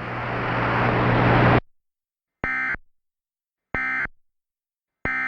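A hiss over a steady hum swells and cuts off suddenly, then three short, identical bursts of Emergency Alert System data tones about 1.3 s apart. These are the end-of-message codes that close an EAS broadcast.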